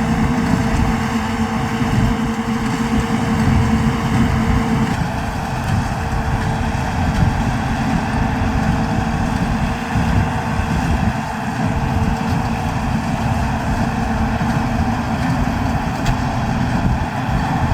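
New Holland TD110D tractor's diesel engine running steadily while baling hay; a steady hum in the sound stops about five seconds in.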